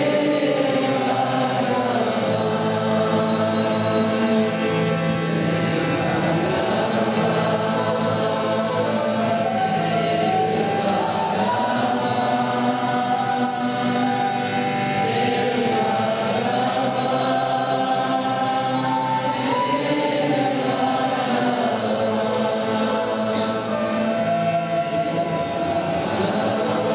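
A group of voices singing together in a slow devotional chant, the melody gliding up and down over a steady low drone.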